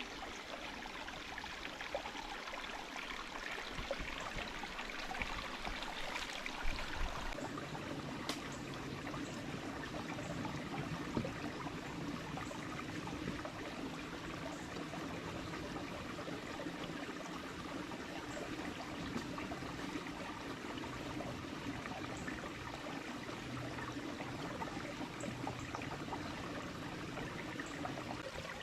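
Small creek running over and among rocks, a steady rush of water, with a few brief knocks about 7, 8 and 11 seconds in.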